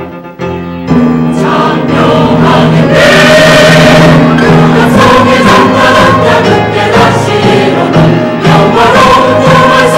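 Church choir singing a sacred anthem in several parts, softer for about the first second, then swelling into full, loud, sustained singing.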